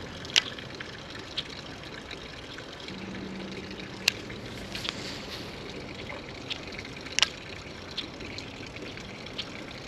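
Creek water trickling steadily, with scattered sharp clicks, three louder ones about half a second, four seconds and seven seconds in.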